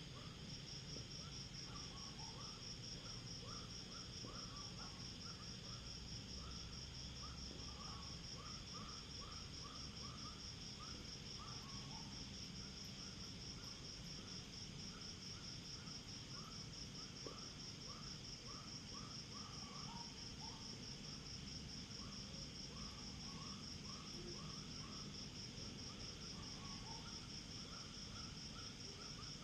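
A chorus of crickets and other insects: a high, steady, finely pulsing trill, with many short lower chirps repeating irregularly over it.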